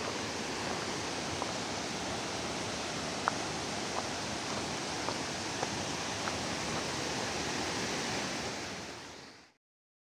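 Waterfall: the steady rush of falling water, with a few faint ticks. It fades out about nine seconds in.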